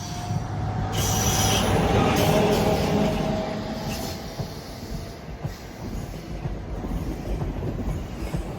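Train running on the rails, its wheels squealing in a steady high tone over the rumble, loudest a second or two in and then easing off.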